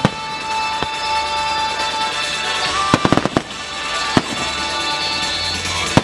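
Aerial firework shells bursting as sharp bangs: a single bang under a second in, a quick cluster of bangs around three seconds in, and another a little past four seconds, over music playing steadily.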